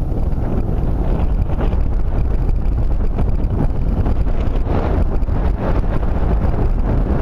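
Wind buffeting the microphone: a loud, steady low rumble that flutters in level.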